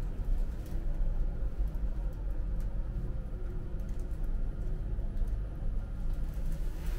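Elevator car in motion: a steady low rumble from the lift's drive and car travel.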